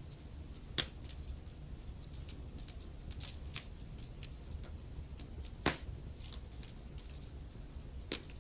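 Wood fire crackling in a fireplace: irregular sharp pops and snaps over a low steady rumble, the loudest pops a little under a second in, just past the middle, and near the end.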